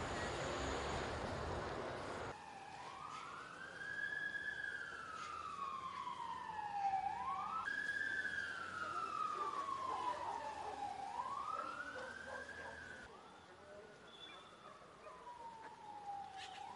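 Rushing street noise for about two seconds, then an emergency vehicle siren wailing: its pitch rises quickly and falls slowly over several seconds, several times over, fainter in the last few seconds.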